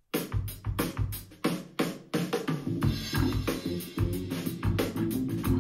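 Apple HomePod smart speaker playing a song: a drum kit beat with a bass line starts right after a moment of silence.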